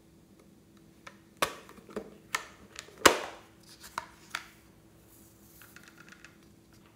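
Hard plastic toy case being handled and snapped open: a string of sharp plastic clicks and clacks, the loudest about three seconds in. Near the end, a faint light patter as the case is tipped over the slime tray.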